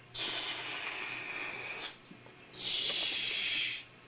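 Two long hissing whoosh sounds blown by a man's mouth, each about a second and a half, with a short pause between them.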